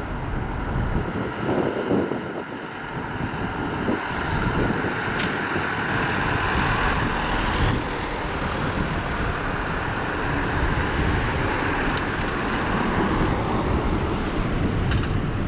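Airbus A400M Atlas four-engine turboprop at takeoff power: a steady, loud rumble and roar that swells about four seconds in and then holds.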